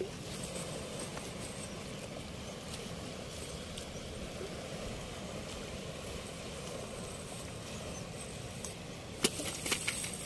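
Steady rush of floodwater pouring through a weir gate, with a few sharp clicks and knocks near the end.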